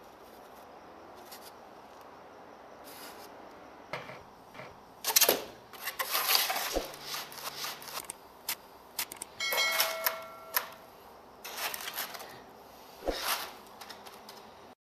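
Carved styrofoam panels being handled and shifted on cardboard: after a few quiet seconds, irregular rustles, scrapes and light knocks, with a brief squeak about ten seconds in.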